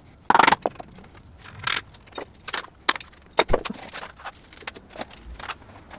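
Metal bolts and washers clinking and wood knocking as rollers are fitted by hand onto a plywood belt sander frame. It comes as a run of irregular clicks and clatters, the loudest about half a second in.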